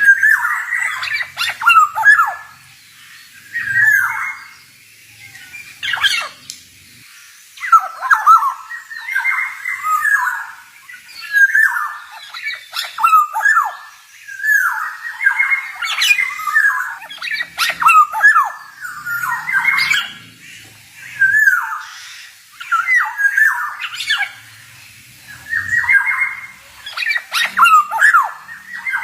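Male black-naped oriole (kepodang) singing: bursts of quick, sharply bending notes, one after another every second or two with short gaps between.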